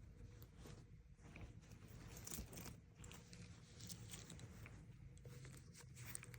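Faint rustling and small clicks of a wool flannel jacket being handled and turned over.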